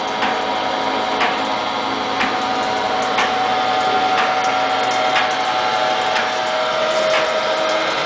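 Hobart 4346 meat mixer-grinder, with its 7.5 HP motor, running steadily after being switched on: an even mechanical hum with a steady whine, and a light tick about once a second.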